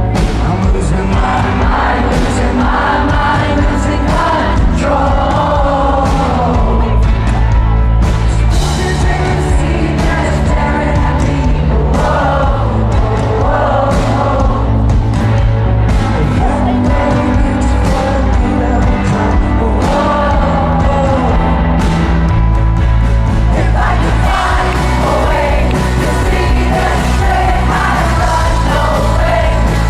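Live rock band playing, with a lead singer singing phrases over drums, bass and guitars.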